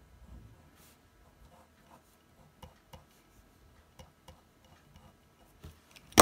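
Graphgear mechanical pencil sketching on paper: faint, irregular light scratches and ticks from the pencil strokes. Near the end there is one sharp click as the pencil is lifted and handled.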